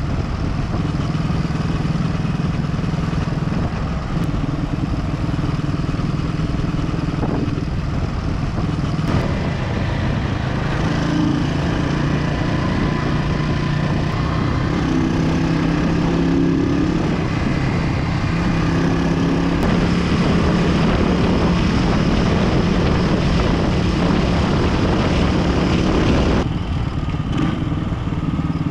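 Yamaha SR500's 499 cc single-cylinder four-stroke engine, breathing through an aftermarket Sims Craft exhaust, running steadily at medium-high to high road speed, with wind noise over it. Near the end the sound drops as the bike eases off.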